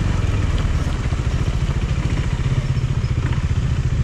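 KTM 390 Adventure's single-cylinder engine running steadily off-road, a low, rapidly pulsing exhaust beat, with a few faint ticks of clatter from the bike on rough ground.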